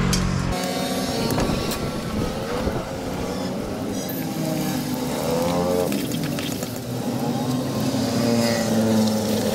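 Street traffic: motor vehicles passing, their engine notes rising and falling in pitch and overlapping.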